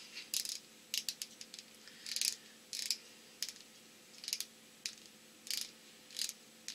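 Repeated small plastic clicks from the ratcheting base of a Milani Power Lip Gloss Stain pen being worked to push product up to its brush tip, a short cluster of clicks roughly every half second to second. This is the priming of a new pen, which takes many clicks the first time before the gloss reaches the brush.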